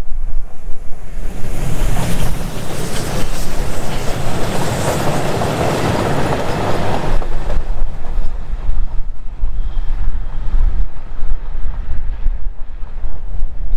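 Polish TKt48 steam tank locomotive and its passenger coaches going past close by and pulling away. There is a rush of exhaust and wheel noise, loudest from about two to seven seconds in, then fading as the train recedes. Heavy wind buffets the microphone throughout.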